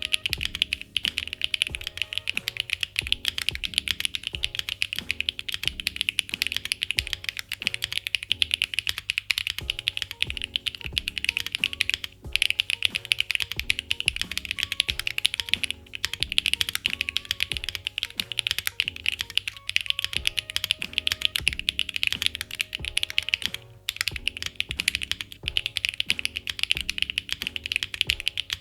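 Fast typing on a MODE Envoy custom mechanical keyboard fitted with HMX Hyacinth switches: a dense, continuous stream of key clacks that breaks off briefly three times.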